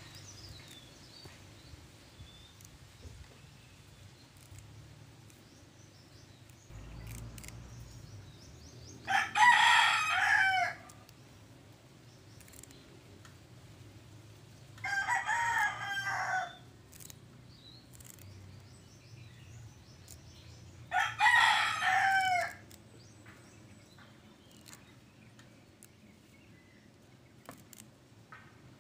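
Rooster crowing three times, about six seconds apart, each crow lasting about a second and a half.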